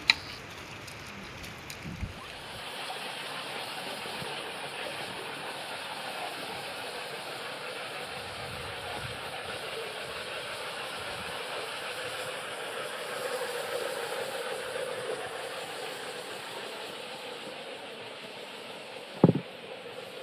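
Steady hiss of heavy rain, which thickens about two seconds in. A single sharp knock near the end is the loudest sound.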